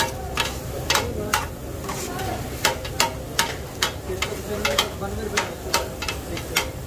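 Metal spatula chopping grilled chicken on a hot flat-top griddle: sharp metallic clacks about two a second, with a short break about a second and a half in, over the sizzle of the griddle.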